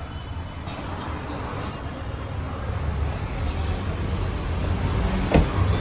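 Steady low rumble of background noise that swells slightly, with one sharp knock about five seconds in.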